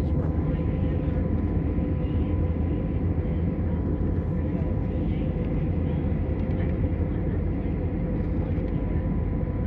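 Steady drone of a jet airliner heard from inside the cabin in flight: a constant low rumble of engines and airflow with a steady hum running through it.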